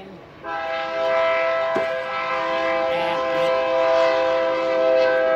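Train horn sounding one long, steady blast of several notes at once, starting about half a second in.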